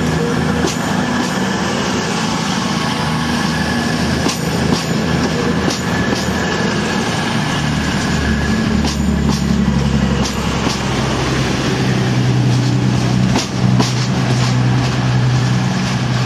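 CrossCountry Voyager diesel multiple unit running along the platform, its underfloor diesel engines droning steadily, with the wheels clicking over rail joints. A second, deeper engine note grows from about twelve seconds in as another Voyager approaches.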